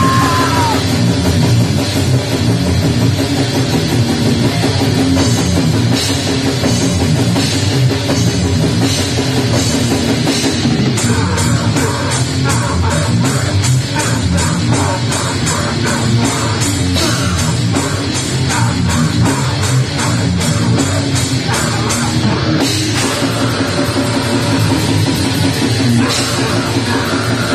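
Heavy metal track: drum kit and guitars playing loud and unbroken, with a passage of steady, evenly pulsing drum hits in the middle.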